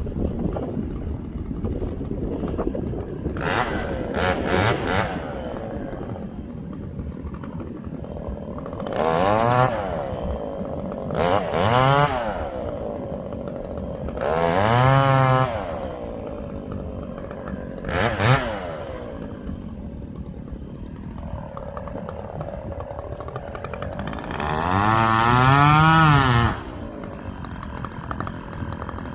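Two-stroke chainsaw idling, revved up and back down in repeated bursts: three quick blips, then several single revs, and a longer rev near the end.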